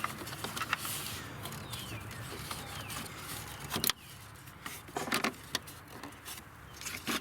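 Plastic clicks and rattles of hands working at wiring-harness connectors on a cooling fan module, squeezing and tugging to release them, with sharp clicks about four seconds in, a quick cluster around five seconds and one more near the end over a steady low hum.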